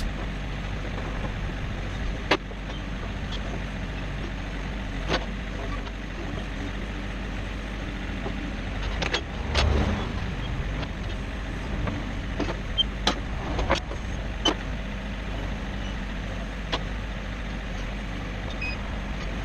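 Small garden tractor engine running steadily, with occasional sharp knocks and clanks.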